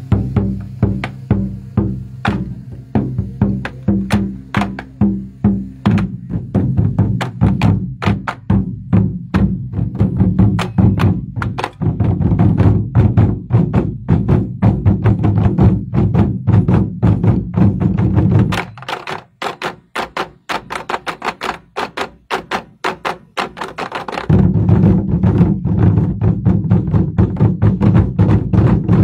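A 24 Festive Drums ensemble of large barrel drums beaten with wooden sticks in fast, driving unison rhythm, with sharp wooden clicks mixed in. About nineteen seconds in, the drumheads stop and only sharp stick clicks sound for about five seconds, then the full drumming comes back.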